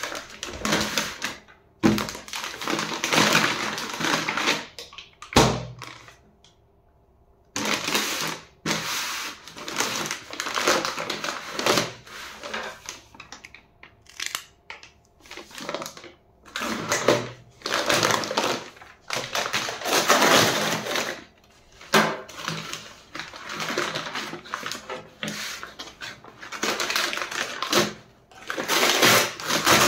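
A brown paper courier bag crinkling and rustling in irregular bursts as it is handled, then slit with a utility knife and torn open. There is a short quiet pause about six seconds in.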